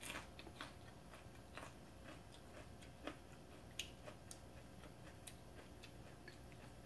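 Faint eating sounds: scattered soft clicks of chopsticks against a bowl, with quiet chewing.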